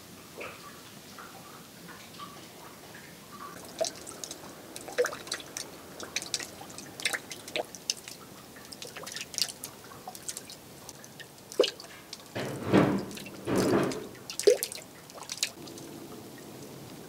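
Meltwater dripping in irregular drops, some sharp and loud, with two longer, louder rushes of water about three-quarters of the way in.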